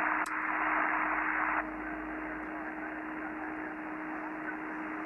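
Shortwave receiver static from an Icom IC-7300 on the 40-metre band in single sideband: a steady hiss clipped off above the voice range, with a steady low whistle of a carrier under it. The hiss drops noticeably about a second and a half in, and there is a faint click just after the start.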